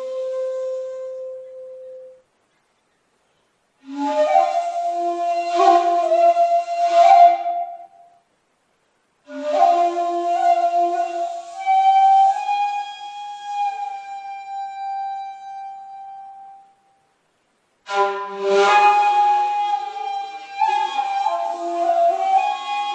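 Handmade 2.8 jinashi shakuhachi (end-blown bamboo flute) playing solo honkyoku: one note trails off, then three more phrases come, each separated by a second or so of silence. The phrases have pitch bends and a few sharp accented attacks, and the middle one ends in a long held note that slowly fades.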